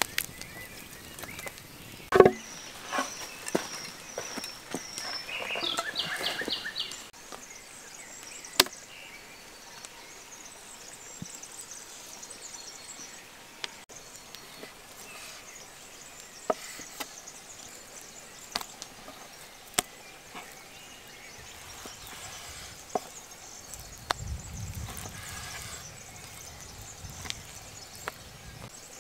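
Scattered sharp knocks and clicks of wood and a steel knife: a stick prodding burning firewood, then a chef's knife cutting through lamb ribs and knocking on a wooden chopping board every few seconds. The loudest knock comes about two seconds in, among a quick cluster.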